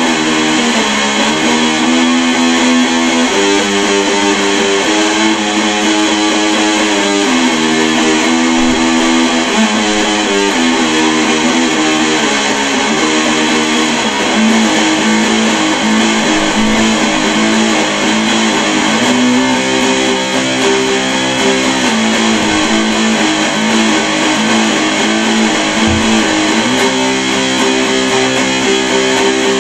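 Metal music: loud electric guitars playing slow, held chords that change every second or two.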